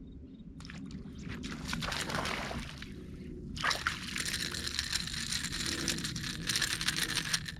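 Water sloshing and trickling beside a kayak, in two stretches of about three seconds each, the second starting about three and a half seconds in.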